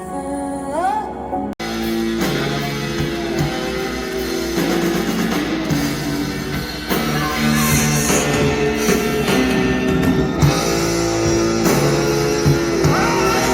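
Music: a sung phrase ends, a brief drop-out about a second and a half in, then rock music with guitar and drums.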